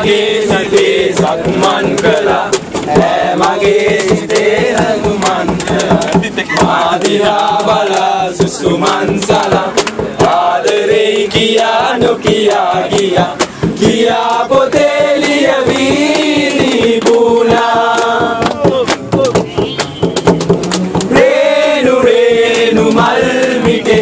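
A group of young men singing loudly together to a fast beat of sharp hits.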